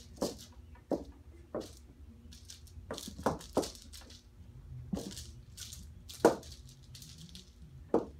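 Kittens pouncing at and batting a dangling toy against a door: irregular knocks and thuds with fainter scuffling between them, the loudest thud about six seconds in.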